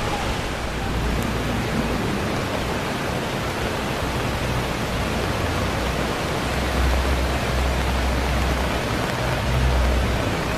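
Steady rush of fast-flowing floodwater, with a low rumble that swells in the second half.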